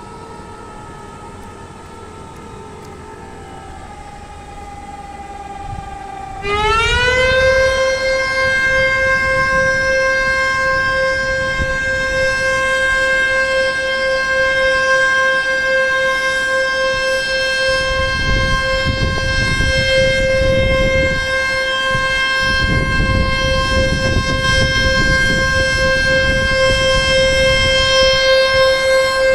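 Dam water-release warning siren, sounding as a warning that water is being released from the weir. A fainter siren tone slides slowly down at first. About six seconds in, a loud siren starts abruptly, rises quickly in pitch, and then holds one steady wail.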